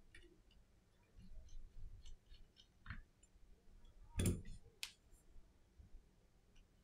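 Faint small clicks and taps of a precision screwdriver and an iPhone SE 2020 being handled during reassembly. There is a louder knock about four seconds in and a sharp click just after it.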